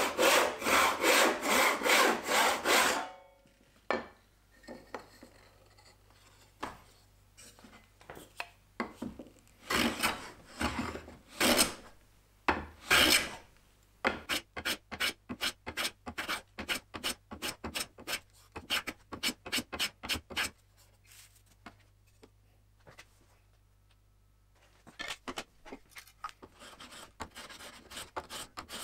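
Hand back saw cutting through a small wooden block with quick, even strokes for about three seconds. Later comes a run of about twenty fast rubbing strokes, a block worked back and forth along the edge of a wooden strip to hand-sand it, with scattered single scrapes around it.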